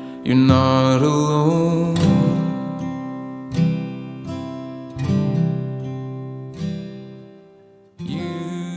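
Background music: acoustic guitar chords strummed about every second and a half, each left to ring and fade.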